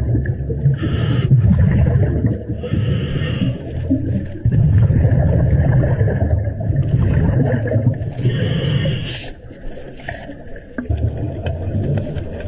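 Scuba regulator breathing underwater: three short hissing breaths in, between long rumbling gushes of exhaled bubbles.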